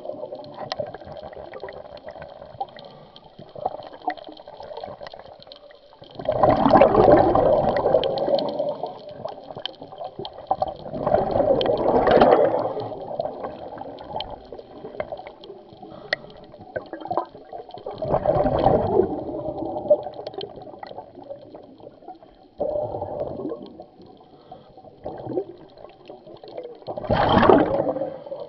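Scuba diver's exhaled bubbles gurgling out of the regulator in surges lasting a second or two, every four to seven seconds, heard underwater.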